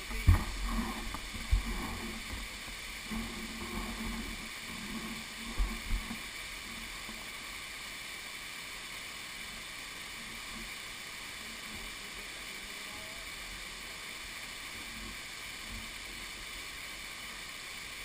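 Steady rush of a waterfall, a constant noisy roar of falling water. In the first six seconds a few low thumps knock on the microphone, then only the even rush remains.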